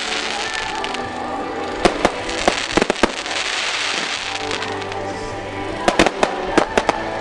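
Fireworks going off: sharp bangs and cracks in two clusters, about two seconds in and again about six seconds in. Music plays steadily throughout.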